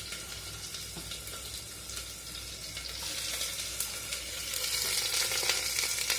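Chopped onion frying in hot oil and spices in a pressure cooker, a steady high sizzle that grows louder near the end, with a few faint clicks.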